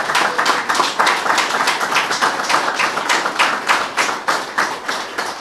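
Audience applauding: many hands clapping at once, in a dense, uneven patter.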